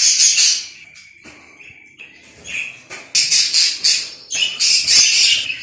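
Many small ornamental cage birds chirping in quick, dense runs, loud at first, quieter for about two seconds, then loud again from about three seconds in.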